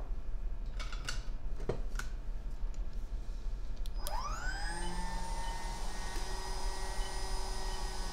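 Hot air rework station's blower spinning up about four seconds in: a whine that rises and then holds steady over a rush of air, heating to solder a replacement TriStar chip onto an iPhone logic board. A few light clicks come before it.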